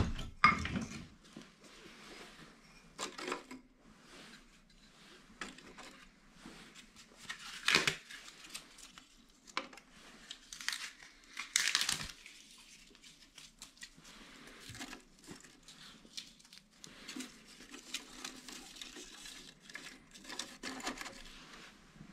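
Kindling sticks and curls of bark being laid in the small steel firebox of a Cubic mini wood stove: scattered light wooden knocks and clatters with rustling and crinkling, loudest about eight and twelve seconds in.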